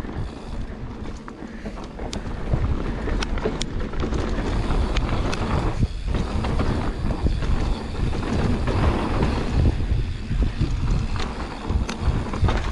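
Mountain bike riding fast down a dirt trail: steady tyre noise on the dirt and wind buffeting the microphone, with scattered sharp clicks and rattles from the bike over bumps.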